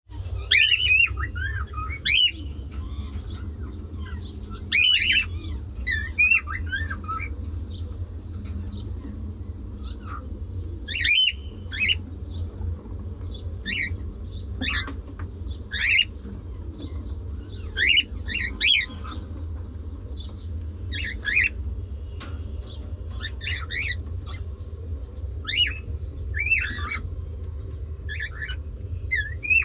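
Cockatiels calling: short chirps and squawks at irregular intervals, some sliding up and down in pitch, over a steady low hum.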